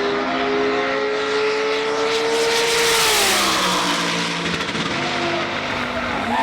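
Drag racing vehicle's engine running hard at full throttle, a steady high engine note that falls in pitch about three seconds in as it goes past, loudest at that moment.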